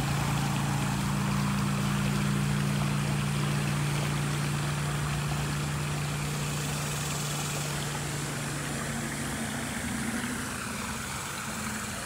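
Steady hiss of running creek water under a steady low engine-like hum that fades out about ten seconds in.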